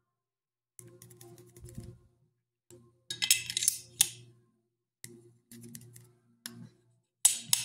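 Steel rifle bolt being slid into and worked in a Remington 700 receiver: small metal-on-metal clicks and scrapes, a burst of clicks about three seconds in, and sharp clacks near the end as the bolt catches on the newly fitted side bolt stop with positive engagement.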